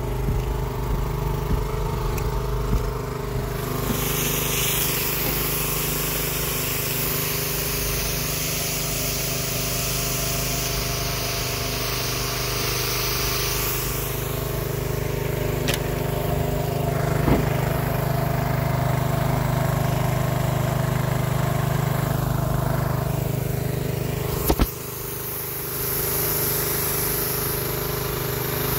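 Track-watering rig's water pump and engine running steadily with an even, noisy hum, while the hiss of spraying water comes and goes. Two sharp clicks sound about three quarters of the way through.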